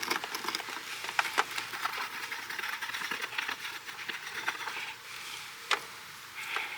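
Scattered light clicks and scrapes of small metal parts handled by hand while threading a part in during an oil change, with a sharper click near the end.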